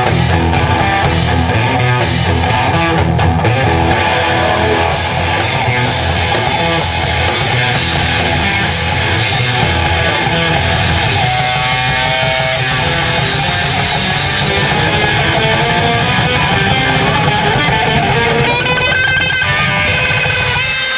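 A rock band playing live, loud and steady, with guitar to the fore.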